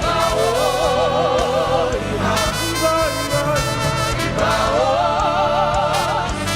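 Live gospel worship music: a voice holds long notes with wide vibrato over a steady band accompaniment.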